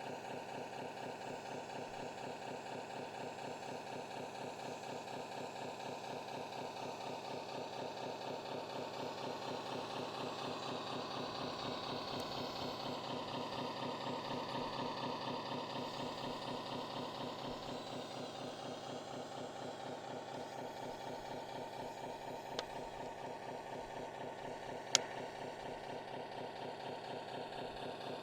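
RC truck engine idling steadily with an even chugging pulse, swelling slightly partway through. A sharp click comes about 25 seconds in.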